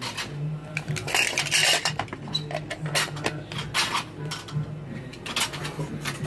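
Clear plastic pretzel containers and their lids clacking and rattling as they are handled, a quick run of sharp clicks, over a low hum that cuts in and out.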